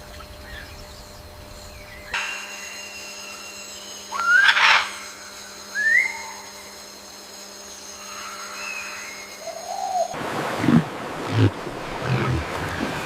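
A few short rising whistled animal calls over a faint steady hum, with one louder brief swish among them. About ten seconds in they give way to a noisy rumble like wind and surf.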